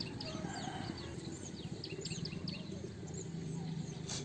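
Small birds chirping outdoors in a quick, irregular run of short high chirps, over a low steady hum, with one brief click near the end.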